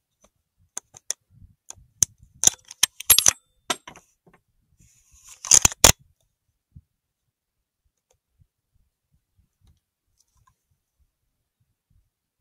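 Handling noise close to the microphone: a run of sharp metallic clicks and taps for about three seconds, then a short rustle ending in two louder clicks nearly six seconds in.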